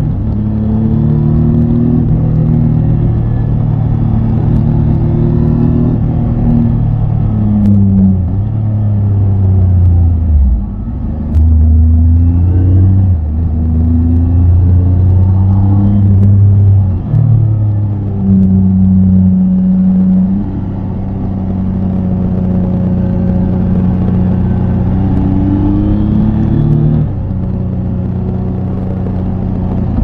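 Triumph Tiger 800 XCA's three-cylinder engine running while the bike is ridden, its pitch stepping up and down several times with throttle and gear changes. There is a brief drop in level about ten seconds in.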